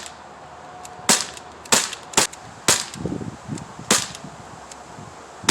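Pellet gun firing a quick series of about five sharp shots, irregularly spaced half a second to a second apart.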